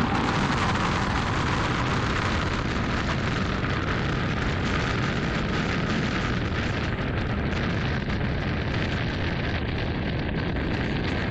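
Steady rushing road and wind noise from a moving vehicle, with no distinct events.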